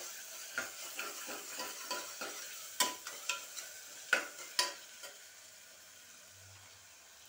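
Onions and ginger-garlic paste sizzling in coconut oil in a pressure cooker while being sautéed, with a spoon scraping and knocking against the pot every half second or so. The stirring stops about five seconds in, leaving a fainter sizzle.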